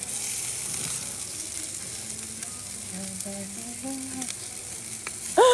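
Food frying in a hot pan with a steady sizzling hiss. Near the end comes a brief loud squeal that slides up and then down in pitch.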